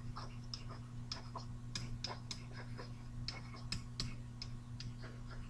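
Stylus tip tapping and scratching on a tablet as it writes by hand, making irregular light clicks a few times a second, over a steady low electrical hum.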